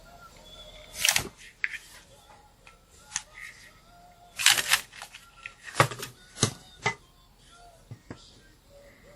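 A series of sharp, irregular plastic clicks and knocks, about eight in all, with a cluster around the middle: small plastic parts of a portable fan being handled and pulled apart during disassembly.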